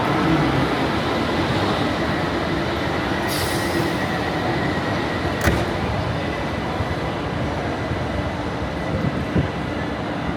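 Train running at a railway station platform: a steady mechanical din with a low hum, a brief hiss about three seconds in and a sharp knock about halfway through.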